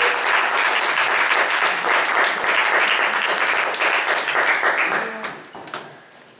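Audience applauding, many hands clapping at once, fading away about five seconds in.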